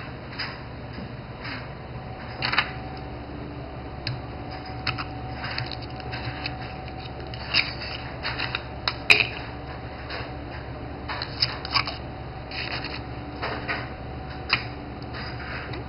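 Oyster knife scraping and clicking against oyster shell as an oyster held in a folded wet cloth is worked open, with scattered shell clinks and one sharp click about nine seconds in.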